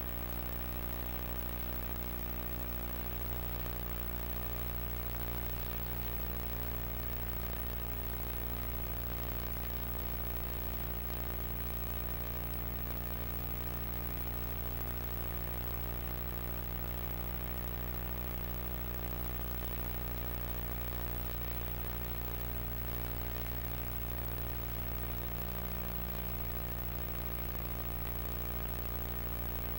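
Steady electrical hum and buzz on the sound track, unchanging throughout, with no other sound.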